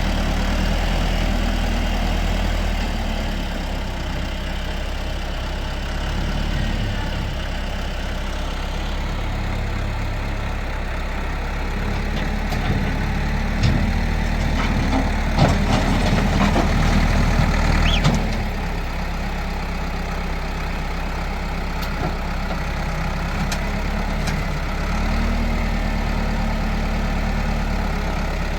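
Tractor engine running steadily, its note shifting up and down a few times, with several sharp knocks and clanks in the middle.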